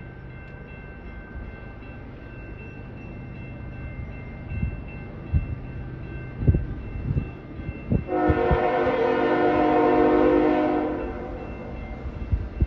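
Diesel freight locomotive's multi-chime air horn sounding one blast of about three seconds, a greeting to the trackside watcher, over the low rumble of locomotives moving slowly. A few dull low thumps come just before the horn.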